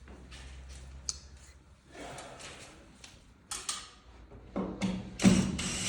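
Light clicks and short scrapes of small lamp parts and screws being handled. Near the end a louder power tool starts whirring, like a drill.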